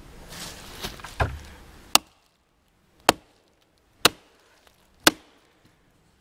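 Hatchet chopping into a stick of wood held against a log to split it: four sharp strikes about a second apart, after a duller knock.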